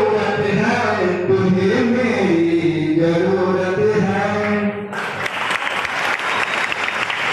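A single voice singing a slow chant-like line with long held notes. About five seconds in, applause suddenly breaks out and continues.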